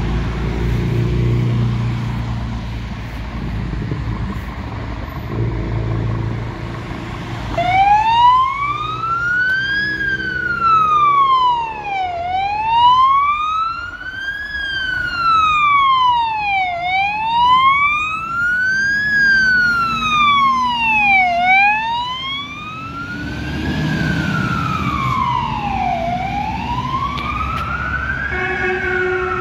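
Low rumble of a fire engine's diesel engine and passing cars, then, about a quarter of the way in, its siren starts: a slow wail rising and falling about every four and a half seconds. Near the end a steady air-horn tone sounds over the wail.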